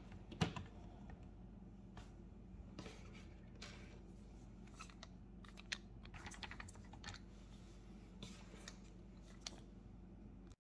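Faint, scattered small clicks and scrapes of a plastic switch cover plate being pressed onto the wall and its screws driven in with a screwdriver, over a faint steady low hum.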